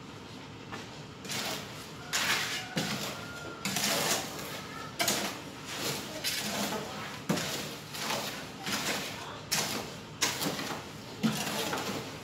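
Wet cement mortar being stirred in a steel wheelbarrow with a long-handled tool: a dozen or so short scraping, slopping strokes, a little faster than one a second, starting about a second in.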